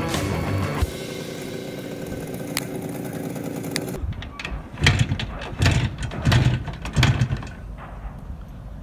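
Background music for the first few seconds. Then an IZh motorcycle is kick-started: about four heavy kicks roughly two-thirds of a second apart, and the engine does not settle into a run.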